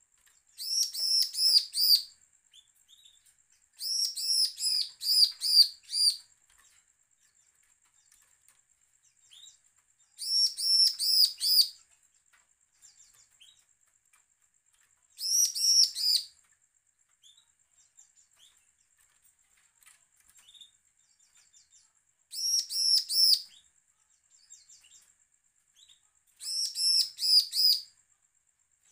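Bar-winged prinia (ciblek) singing in six short bursts of rapidly repeated high chirping notes, each burst one to two seconds long with several seconds between. It is the aggressive, challenging song that keepers play as a lure to provoke other ciblek into singing.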